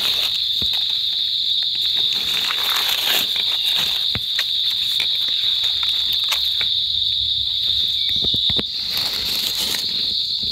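Insects buzzing in a steady, high-pitched chorus, with a few short crackles of dry leaves as a mushroom is picked from the leaf litter.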